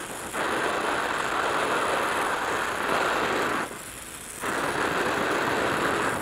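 Oxy-acetylene welding torch (Victor Journeyman Edge 2.0 with a #3 tip) hissing steadily with a neutral flame as it melts the puddle of an open-root butt weld in carbon steel. The hiss drops in level briefly twice: right at the start and a little past halfway.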